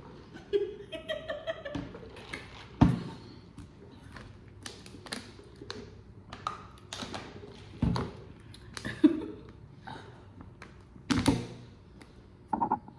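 Drink cups and food packaging being handled and set down on a table: scattered light knocks and taps, with three louder thuds spread through.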